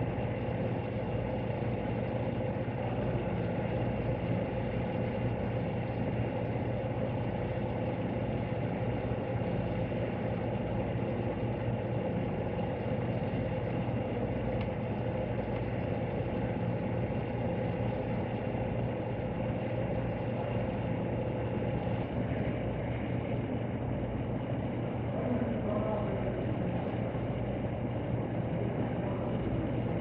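Steady low machine hum with faint constant tones above it, unchanging throughout.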